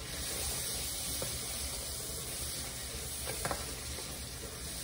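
Speckled beans frying in a steel pot with freshly added coconut cream, sizzling steadily as a wooden spoon stirs them, with a couple of faint knocks of the spoon against the pot.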